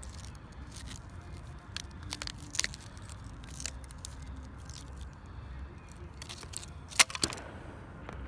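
The burnt remains of a calculator, circuit board and charred plastic, being snapped and crumbled by hand: scattered cracks and crunches, with the two sharpest snaps about seven seconds in.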